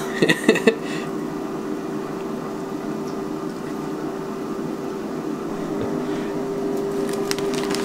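Countertop air fryer running: a steady fan-and-heater hum with one constant tone.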